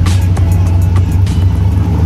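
Cammed 6.0 L LS V8 in a 1994 GMC Sierra idling on a chassis dyno, a steady low rumble. Background music plays over it and fades out about a second and a half in.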